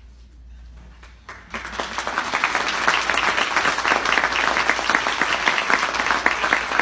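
Audience applause: a short quiet spell, then many people clapping, beginning about a second and a half in and holding steady.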